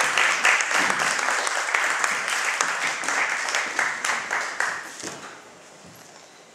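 A small audience applauding, the clapping dying away about five seconds in.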